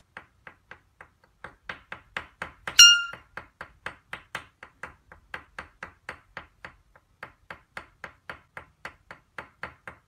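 Wooden stick held by a black-headed caique tapping on a wooden desk in a steady rapid rhythm, about four light taps a second. A single short, bright ping about three seconds in.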